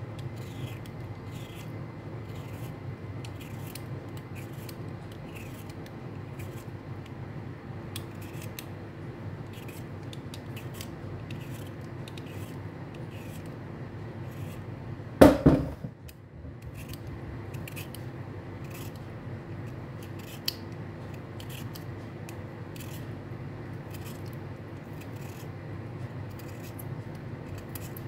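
Vegetable peeler scraping the skin off raw beetroot in quick, repeated strokes, about one or two a second, over a steady low hum. One much louder knock comes about halfway through.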